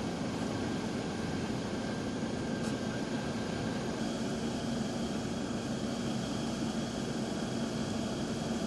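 Fire truck engine idling: a steady mechanical drone with a constant low hum and a faint higher whine over it.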